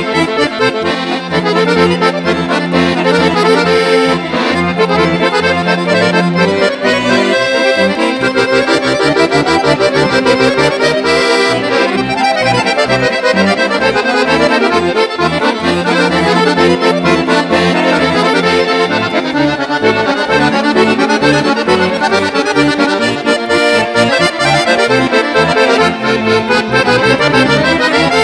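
Two chromatic button accordions playing a Serbian folk-style instrumental together, with fast running melody lines over a bass accompaniment.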